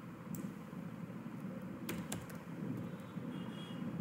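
A handful of computer keyboard keystrokes: scattered sharp clicks with pauses between them, over faint room noise.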